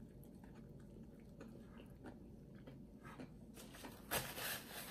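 Close-miked chewing of a mouthful of hamburger: faint, moist mouth clicks and squelches. Near the end comes a louder rustling scrape as a paper drink cup is picked up and moved.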